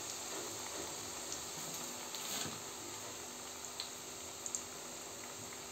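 Chakli spirals deep-frying in hot oil in a pan: a steady sizzle with a few small pops and crackles.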